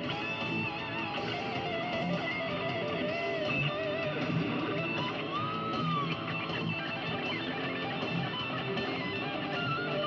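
Background music led by guitar, with sliding lead lines over strummed chords.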